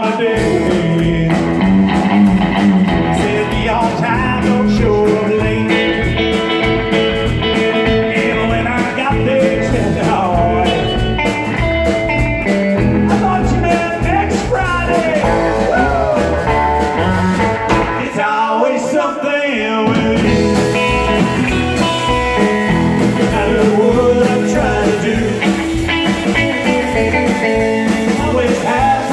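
Live blues-rock band playing: electric guitar lines bending in pitch over bass and drums with a steady beat. The bass and drums drop out for about two seconds past the middle, then come back in.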